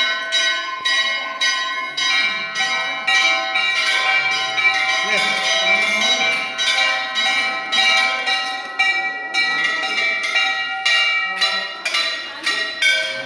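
Hindu temple bells rung continuously by worshippers, struck rapidly at about three strikes a second, with several ringing tones overlapping.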